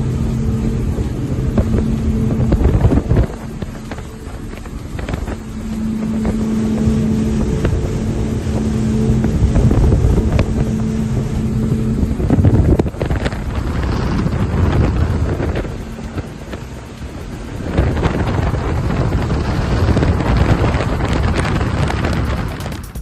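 Outboard engines of a Contender 39 ST center-console running underway: a steady engine hum under heavy wind noise on the microphone and water rushing past the hull. The wind noise surges and eases every few seconds.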